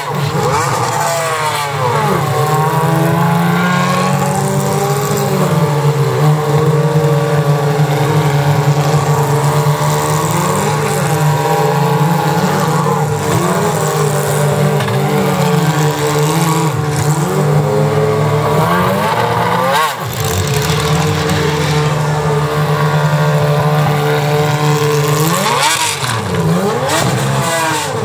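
Formula 3 race cars' 3.4-litre V6 engines idling, with the throttle blipped again and again so the pitch sweeps up and falls back, several times over.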